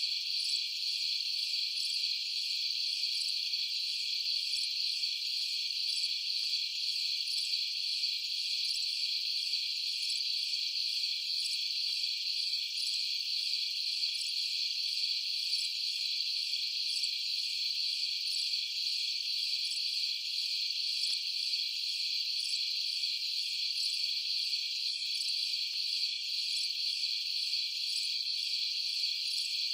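Dense, steady chorus of night insects, crickets chirping and trilling together without a break, with a fainter regular pulsing in a higher pitch.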